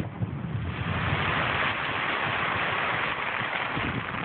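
A firework bang, then a dense crackling hiss that swells about a second later and fades near the end: the crackle of firework stars after an aerial shell bursts.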